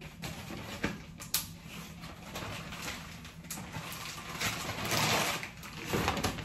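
Clear plastic zipper bags crinkling and rustling as hands dig through them, with a couple of sharp clicks in the first second and a half and the loudest crinkling about five seconds in.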